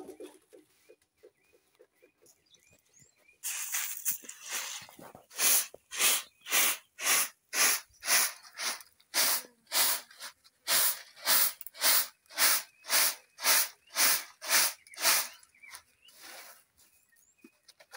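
Shelled maize grains tossed in a woven winnowing basket, rattling and swishing as they are thrown up and caught, in a steady rhythm of about two tosses a second: winnowing the maize clean before milling. A few light ticks come first, the tossing starts about three and a half seconds in and stops a couple of seconds before the end.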